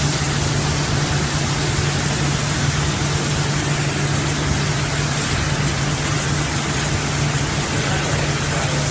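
Gravity-feed compressed-air spray gun hissing steadily as it sprays paint, over the constant hum of a water-wash spray booth's machinery and the rush of its water curtain.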